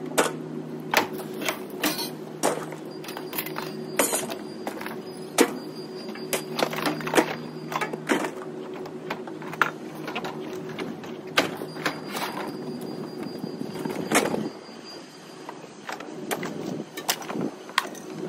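Scrap metal clanging and banging in irregular knocks as pieces are unloaded from a trailer and dropped onto the ground, over a steady low hum that weakens about three-quarters of the way through.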